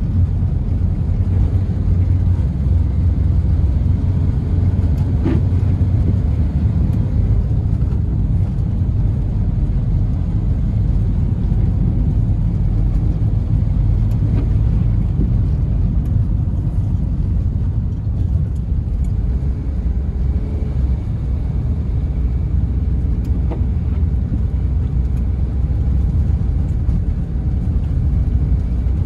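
Steady low rumble inside the cabin of a Smart Fortwo 451 CDi driving on a snowy road: its small three-cylinder diesel engine running under way, mixed with tyre and road noise.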